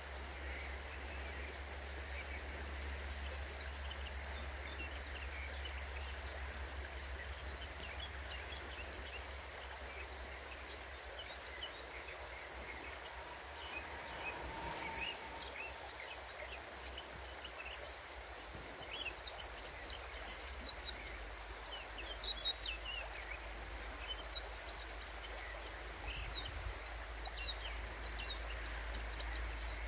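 Outdoor riverside ambience: the steady rush of a flowing river with many small birds chirping and singing throughout, over a low steady rumble.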